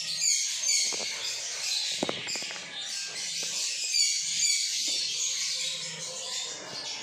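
Budgerigars chattering: a dense, continuous stream of rapid chirps and warbles, with a few short knocks, the clearest about two seconds in.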